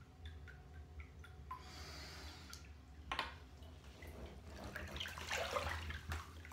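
Faint bathwater sounds in a filled bathtub: a few small drips, then sloshing as a person moves in the water, with one sharper splash about three seconds in.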